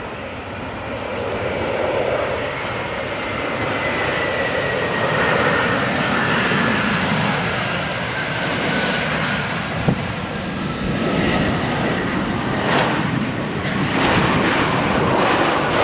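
Jet airliner landing, its engine whine falling slowly in pitch under a steady jet noise, with gusty wind buffeting the microphone. The noise swells in several louder surges in the second half.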